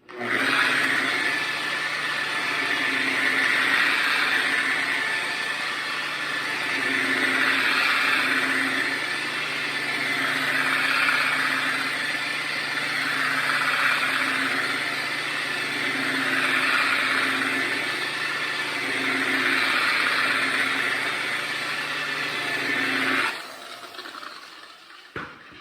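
Electric machine polisher running on a car's paint, buffing out 1500-grit wet-sanding marks with polish; its sound swells and fades about every three seconds as the pad is worked over the panel. It is switched off about 23 seconds in and winds down.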